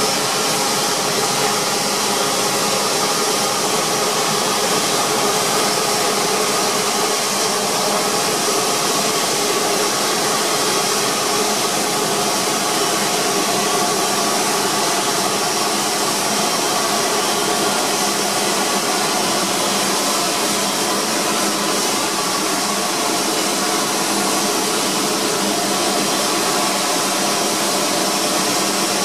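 An Airbus A350-900's turbines running steadily at idle: a continuous rushing hiss with several steady whining tones, unchanging in pitch and loudness.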